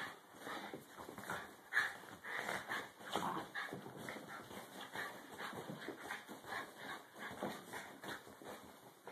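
Two small dogs play-wrestling on carpet: a quick, irregular run of scuffling noises from their bodies and mouths, with no barking or growling.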